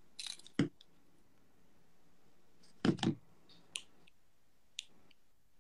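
A few short, sharp clicks over quiet room tone: a sharp one about half a second in, a quick double click about three seconds in, and a couple of faint ticks after.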